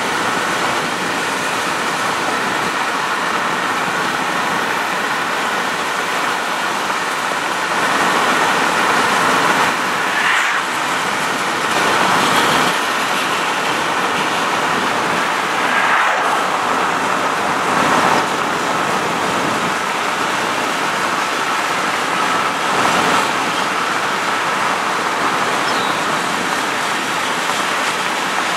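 Steady road and wind noise of a moving car, mixed with the rolling of a freight train's hopper cars on the track alongside, swelling briefly several times.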